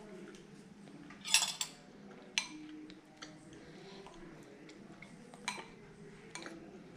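Metal spoon clinking against a ceramic soup bowl as it stirs: a quick flurry of clinks about a second in, the loudest, then a sharp single clink and a few fainter ones spread through the rest.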